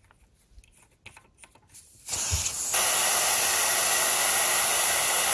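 Air hissing out of a tire through a Staun automatic tire deflator screwed onto the valve stem, letting the tire down toward its preset pressure (39 psi for the front). A few faint clicks as the deflator is threaded on, then the hiss starts about two seconds in, gets louder a moment later and holds steady.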